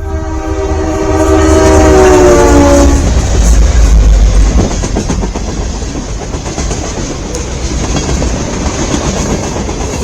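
A freight locomotive's multi-chime horn sounds one long blast that drops in pitch as the locomotive goes by and cuts off about three seconds in. Under it and after it, a long CN manifest freight train rumbles and clatters past at speed.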